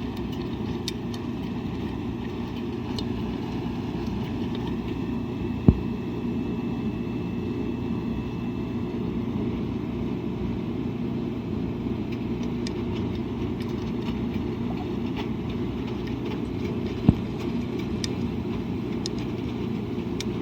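Washing machine running with a steady low rumble, broken by two sharp knocks about eleven seconds apart.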